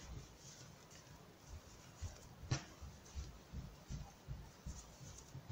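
Faint rustling and soft taps of hands working cotton sock-top loops through the stitches of a finger-knitted slipper sole, with one sharper click about two and a half seconds in.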